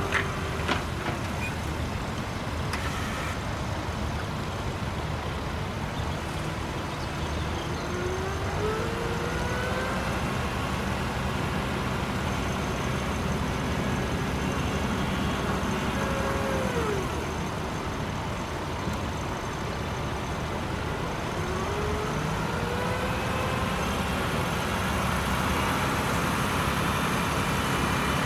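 Tractor engine running steadily, its pitch rising and falling a few times as the revs change.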